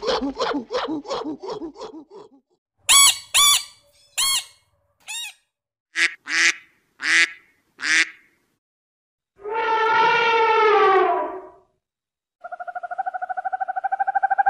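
A primate's rapid series of hoots, fading out within the first two seconds. Then duck quacks in two groups of four, a longer drawn-out call with a slightly falling pitch about ten seconds in, and a steady buzzing tone from about twelve seconds on.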